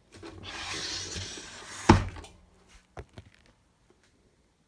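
Wooden watchmaker's tool chest being handled and closed: a second or two of rustling, sliding noise, then one sharp wooden thump about two seconds in, followed by two lighter knocks about a second later.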